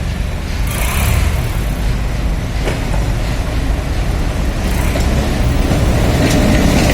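Twin ALCO WDM3A diesel locomotives' 16-cylinder engines chugging with a deep, steady rumble that grows slightly louder, with a few short hisses of air.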